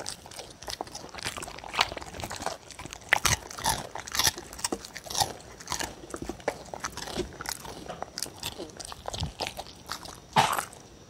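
A dog eating cereal and pet milk from a wooden bowl: irregular crunching and chewing with wet mouth noises, and one louder noise near the end.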